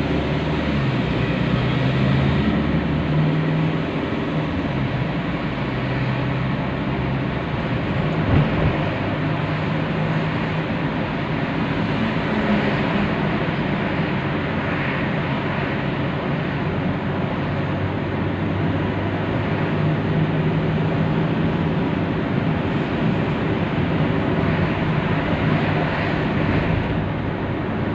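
Car driving, heard from inside the cabin: steady tyre and road noise with the engine running under it, its low note shifting in pitch during the first few seconds as the car pulls away. A brief knock about eight and a half seconds in.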